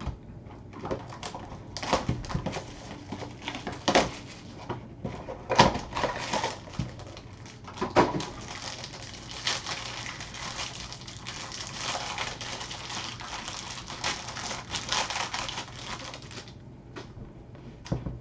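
Trading cards and their packaging being handled: a string of sharp clicks and taps, then about seven seconds of dense crackling, likely a pack wrapper being torn open and crinkled, which stops suddenly.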